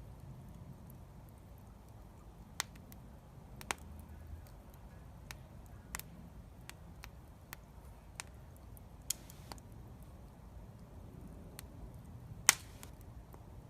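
Wood fire crackling: scattered sharp pops and snaps at irregular intervals over a low steady background, with one louder snap near the end.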